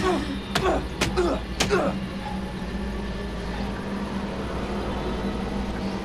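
A wordless voice sounds for about the first two seconds, broken by several sharp clicks, then gives way to a steady low hum with a deep rumble.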